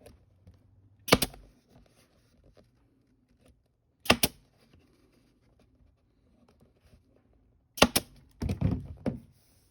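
Pneumatic staple gun firing staples into a plastic console lid, three sharp single shots about three seconds apart, with handling noise after the last shot.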